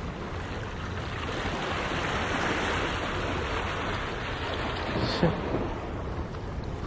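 Sea waves washing against the rocks of a breakwater, with wind buffeting the microphone. A brief knock stands out about five seconds in.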